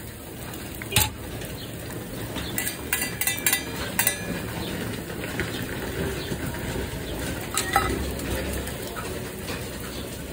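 Metal serving tongs and steel pans clinking against a plate and the steel counter as döner meat is served. There is one sharp clink about a second in, a quick run of clinks around three to four seconds in, and another near eight seconds.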